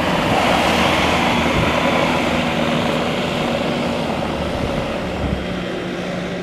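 Bobcat T650 compact track loader's diesel engine running steadily under a broad rushing noise, slowly getting quieter.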